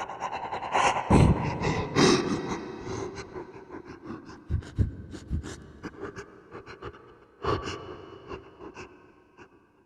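A man crying: sobbing with gasping, shaky breaths in irregular bursts, loudest about a second or two in and gradually fading away toward the end.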